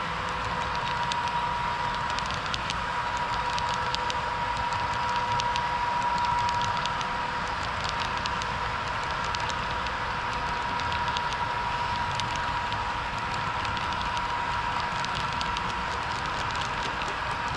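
HO scale model train running on layout track, a steady whine with many small clicks of wheels over the rails.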